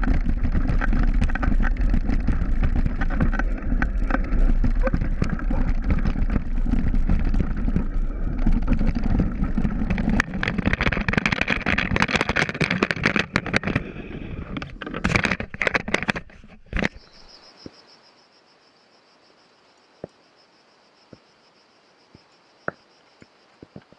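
Mountain bike descending a rocky trail heard through an action camera: wind rumble on the microphone with constant rattling and knocks from the rough ground, ending in a run of loud knocks as the camera is jolted out of place in a rock garden. About two-thirds of the way through it drops to a faint steady high hiss with a few soft clicks.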